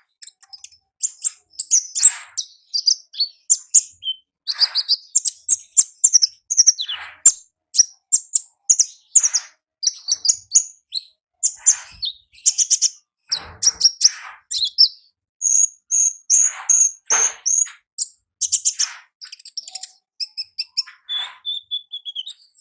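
Konin ninja, a small nectar-feeding songbird, singing its wild-style ngalas song: quick runs of high, thin chirps and twitters, one after another, with only brief gaps.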